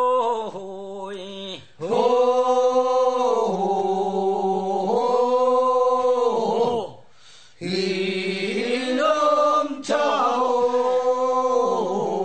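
Korean funeral bier-bearers' song (sangyeo-sori) sung unaccompanied in long, drawn-out chanted phrases, with short breaks about two seconds and about seven seconds in.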